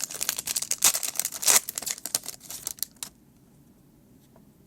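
Foil wrapper of a Pokémon card booster pack crinkling and tearing as it is opened: a fast run of crackles that stops about three seconds in.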